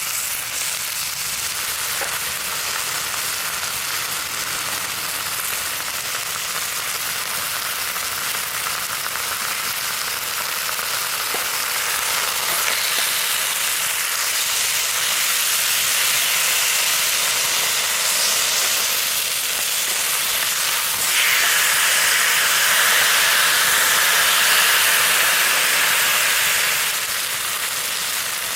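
Chicken sizzling in a frying pan over a campfire, a steady hissing fry that swells about halfway through and is loudest for several seconds near the end before settling back.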